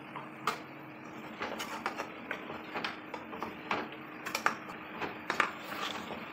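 Metal spoon clinking and scraping against a stainless steel pot as chunks of marinated goat meat are stirred to brown, irregular knocks about twice a second over a faint steady hum.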